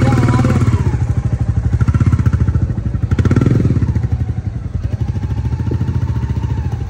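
Royal Enfield motorcycle engine running with a fast, even beat as it is ridden off. It swells with throttle near the start and again about three seconds in.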